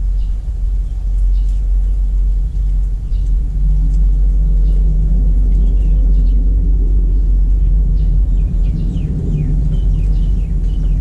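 A loud, steady low rumble with short, high bird chirps scattered over it, some falling in pitch, more of them in the second half.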